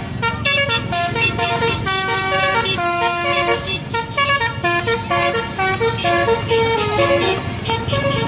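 A bus's telolet horn, a multi-trumpet air horn playing a tune: a fast run of short steady notes stepping up and down in pitch.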